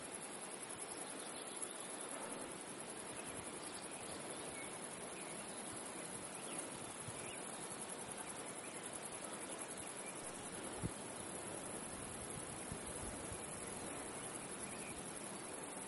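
Faint outdoor ambience: a steady hiss with scattered brief chirps, and one soft knock about eleven seconds in. The distant locomotive is not audible.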